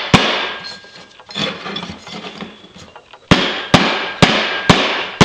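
Hammer blows driving a metal shaft into a welded aluminium bracket: one sharp blow just after the start, some lighter knocking and scraping, then a run of about five sharp strikes about two a second near the end, each ringing briefly.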